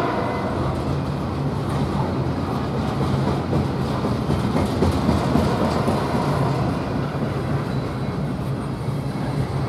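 Double-stack intermodal freight cars rolling past at speed: a steady rumble of wheels on rail with the clickety-clack of wheels over rail joints.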